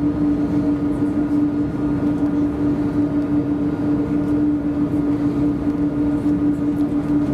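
Steady cabin noise inside an Airbus A330-200: the even hum of its Pratt & Whitney PW4168A engines with one constant low tone over a rumble, not changing in pitch or loudness.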